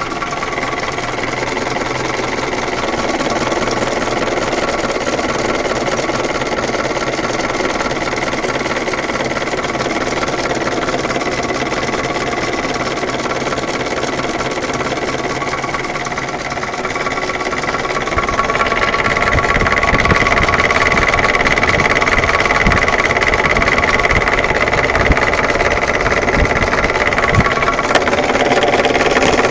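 UMZ-417 four-cylinder petrol engine of a UAZ 31514 running with a knock whose cause the owner does not know. It runs steadily, then gets louder about eighteen seconds in.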